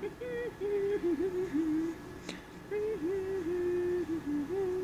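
A person humming a tune in held, stepping notes. The humming breaks off briefly about two seconds in, where there is a single sharp click.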